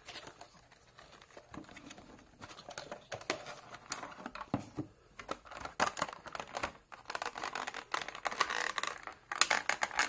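Clear plastic blister packaging and cardboard crinkling and crackling in the hands as a figure is worked out of it, in a run of quick small clicks that grows busier and louder in the second half.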